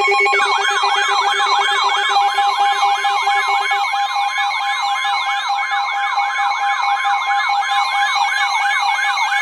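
Weather radio alert tones that precede a warning: steady alarm tones with a warbling, siren-like alarm sweeping up and down about three times a second over them. A rapid lower beeping stops about four seconds in.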